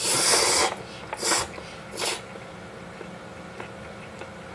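A person slurping chilled hiyashi chuka noodles: a long loud slurp, then two shorter slurps about a second apart.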